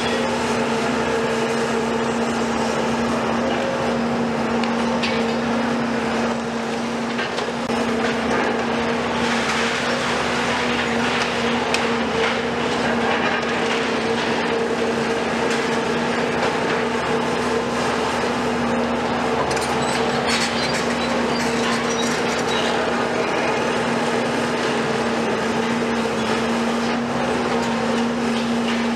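Demolition excavators' diesel engines and hydraulics running with a steady droning hum, with occasional knocks and crunches of concrete being broken.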